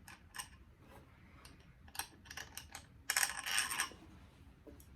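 Small hard parts being handled during an unboxing: scattered light clicks and clinks, with a short burst of rustling and clattering about three seconds in.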